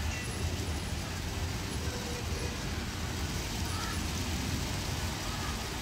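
Outdoor street ambience: a steady low rumble of road traffic with an even background hiss, and no distinct events.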